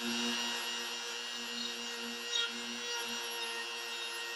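Bosch Colt compact router running at a low speed setting while its bit cuts a shallow hinge mortise into the wood, a steady motor whine.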